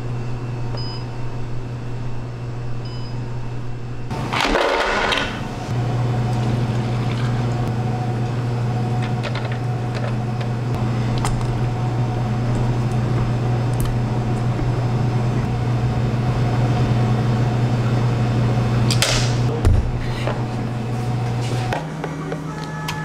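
Steady low appliance motor hum with a light hiss. It breaks off about four seconds in under a louder rattling burst, comes back, and steps up in pitch shortly before the end. A second short burst comes about nineteen seconds in.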